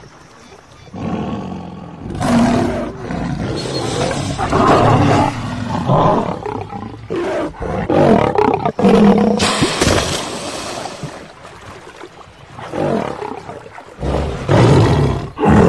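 Lion growling in several loud, irregular bouts, with a quieter stretch a little past the middle.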